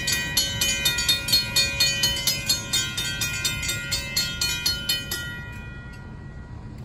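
Railroad grade-crossing warning bell ringing rapidly, about four strikes a second, then cutting off suddenly about five seconds in, leaving a low background rumble.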